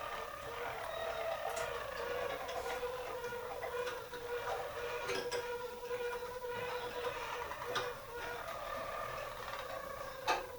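Harzer roller canary singing its low, unbroken rolling song, with a few sharp clicks, the loudest near the end.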